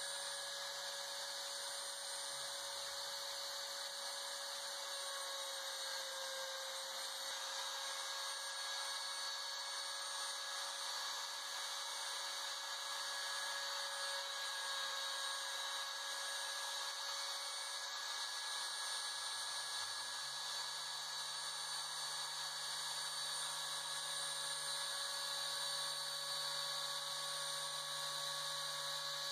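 Homemade CNC router running: its Makita trim-router spindle gives a steady high-speed whine with a hiss of cutting, over the lower hum of the stepper motors. The stepper hum drops in pitch and comes back twice, about two seconds in and again near twenty seconds in, as the axes change speed.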